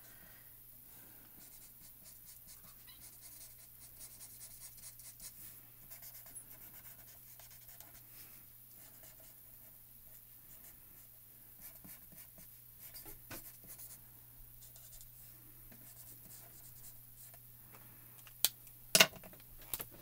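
Copic alcohol marker nib rubbing and scratching softly on stamped cardstock as an area is coloured in, over a faint steady low hum. Two sharp clicks near the end as the marker is capped.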